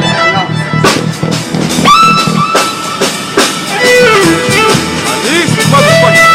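Band playing music at a rehearsal: drum kit strikes under a bass line, with a lead instrument whose held notes bend and slide in pitch.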